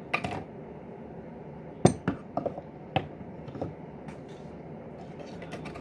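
Scattered clicks and light knocks of small containers and items being picked up, set down and moved on a surface, about half a dozen, the sharpest about two seconds in.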